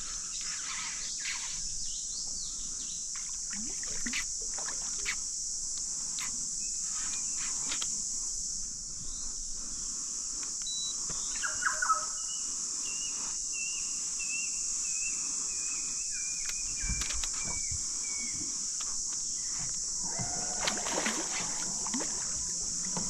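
Outdoor ambience on the water: a steady high-pitched hiss throughout, with scattered small clicks and knocks. About twelve seconds in, a bird calls with a wavering whistle that falls slowly in pitch over several seconds.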